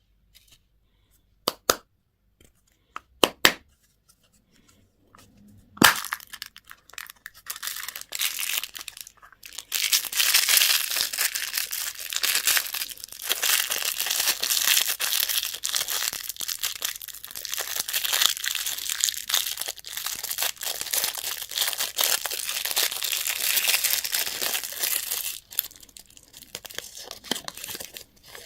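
A few sharp clicks, then a long stretch of crinkling and tearing as a candy wrapper is peeled open close up. It dies away shortly before the end.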